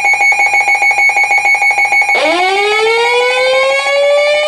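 An electronic alarm tone pulsing rapidly at a fixed pitch, about five pulses a second. About two seconds in it cuts off and a siren starts winding up, its pitch rising slowly.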